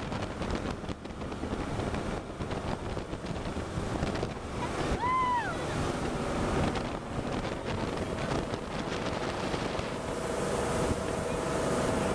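Jet boat running fast up a river: wind buffeting the microphone over rushing water. About five seconds in, a brief high call rises and falls, and a steady engine hum comes up in the last few seconds.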